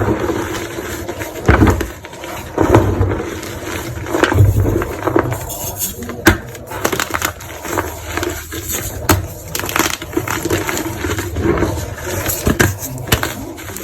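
Crumbly gym chalk being crushed: irregular crunching and crackling, with scattered sharp snaps.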